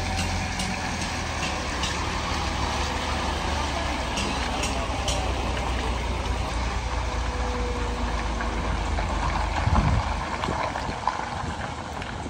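Truck engine idling steadily, with a short surge in engine sound about ten seconds in.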